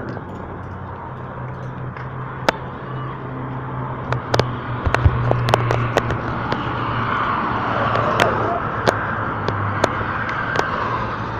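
Highway traffic noise: a steady low engine hum, with road noise from a passing vehicle building to a peak about eight seconds in and then easing off, and scattered sharp clicks.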